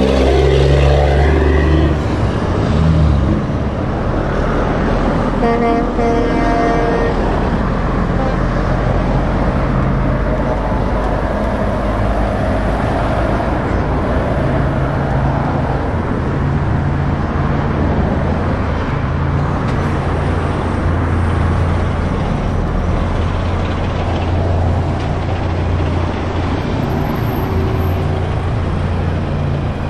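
Diesel engines of heavy trucks driving slowly past in a line of traffic, a steady low drone. A horn toots briefly about six seconds in.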